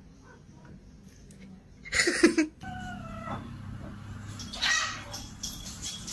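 A cat crying out loudly about two seconds in, followed at once by a steadier, higher-pitched call.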